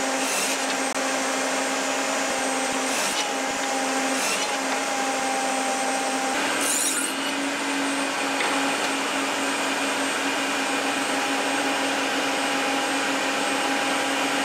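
Table saw running steadily with its blade spinning, and a few short bursts of cutting noise as a wooden block is pushed over the blade in several passes to cut a wide groove.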